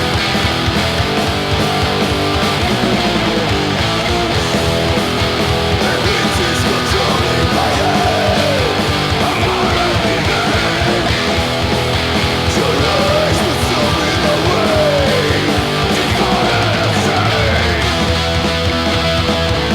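Punk 'n' roll song played from a vinyl record: distorted electric guitars, bass and drums at a steady loud level, with gliding, bending notes through the middle.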